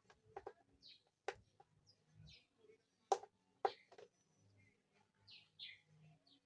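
A few faint sharp clicks and taps, with short high falling chirps like bird calls between them.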